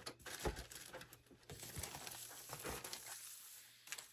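Plastic packaging crinkling and rustling as parts are handled and unpacked, with a few light knocks.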